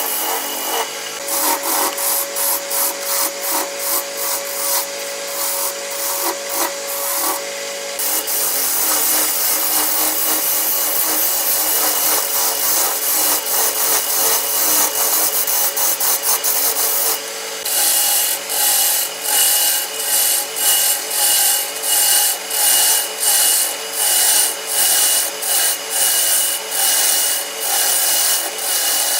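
Tool scraping and rasping wood on a homemade lathe, in repeated strokes about two a second at first and about one a second later, with a faint steady whine underneath. The sound changes abruptly twice.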